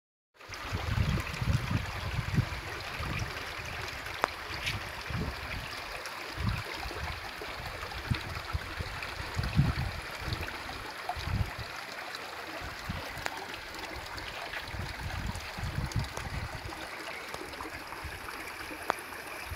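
Shallow creek water trickling and running over rocks as a steady hiss, with irregular low bumps on the microphone.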